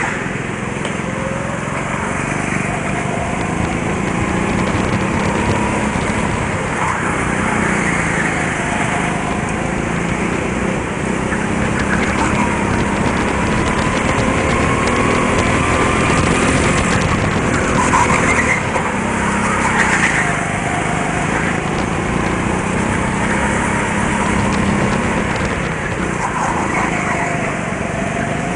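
Go-kart's small engine running hard right under the driver, its note rising and falling as the kart speeds up on the straights and slows for the corners.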